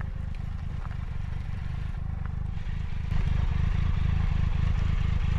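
Motorcycle engine idling: a steady low beat of firing pulses, louder from about three seconds in.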